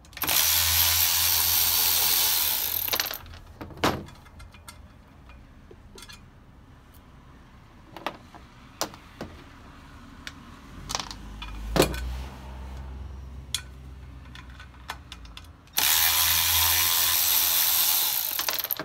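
Milwaukee cordless power ratchet running twice, about three seconds each time, at the start and near the end, spinning the nuts off the brake rotor's ring bolts. Between the two runs come scattered light metal clicks and knocks of the socket and nuts being handled.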